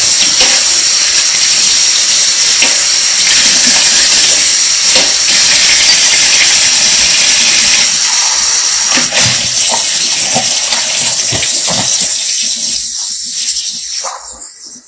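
Water running from a kitchen tap into the sink, a steady hiss that dies away near the end.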